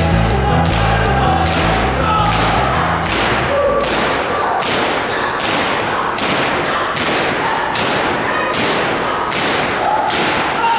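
A large group jumping in unison on a gym floor, doing jumping jacks, the landings making a regular thud a little more than once a second. Background organ music fades out a few seconds in.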